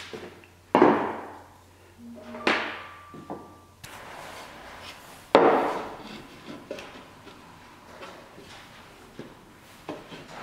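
Three sharp bangs, each fading quickly, with smaller knocks between, from a birch plywood drawer box being put together on a workbench.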